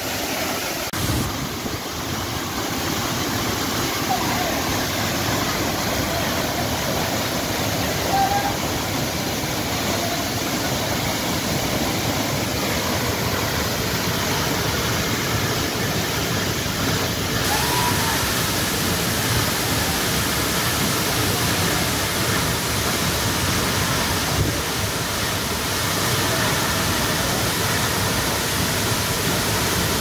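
A large waterfall in heavy flow, a steady, unbroken rush of water crashing into its plunge pool, with wind buffeting the microphone.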